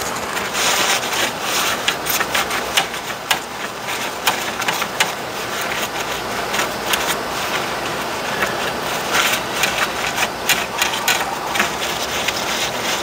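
Paper wipe scrubbing across the circuit board of a GM truck instrument cluster to clean off solder flux residue: steady scratchy rubbing with many small clicks and scrapes.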